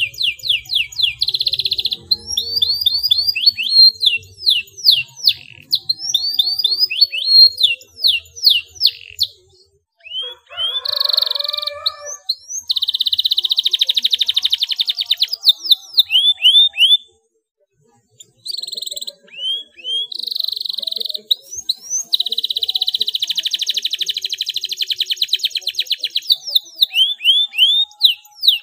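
Domestic canary singing a long, high-pitched song of rapid rolling trills and fast swept chirps. The song breaks off for about a second roughly two-thirds of the way through, then goes on.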